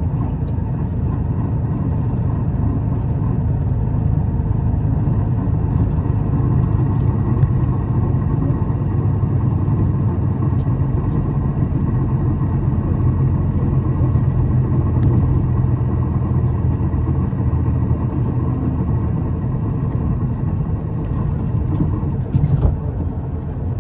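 Isuzu Erga city bus heard from inside the cabin while driving: a steady engine and road rumble, with a brief knock near the end.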